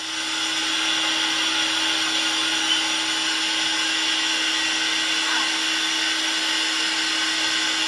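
Corded electric hair clippers running steadily, a constant buzz with hiss that does not change.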